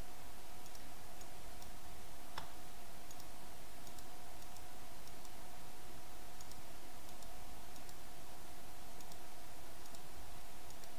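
Computer mouse clicks, faint and irregular, with one sharper click about two and a half seconds in, over a steady hiss and a thin steady hum.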